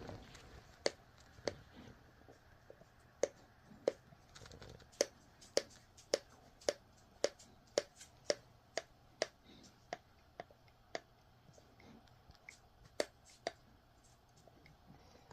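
A pit bull mix dog's joints cracking: a series of about twenty sharp pops, coming about two a second in the middle of the stretch and more sparsely at either end.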